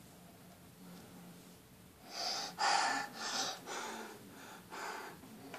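A child breathing out in a series of loud, noisy sighs or puffs, about five of them in the second half, the strongest about three seconds in.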